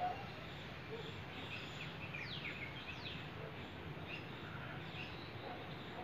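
Outdoor yard ambience with birds chirping, including two quick downward-sweeping high calls about two and three seconds in, over a steady low background noise.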